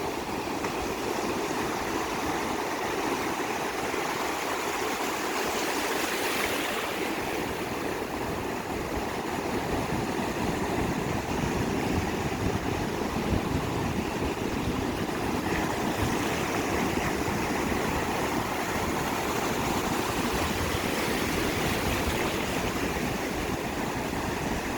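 Ocean surf breaking and washing ashore as a continuous rush, swelling now and then as larger waves come in.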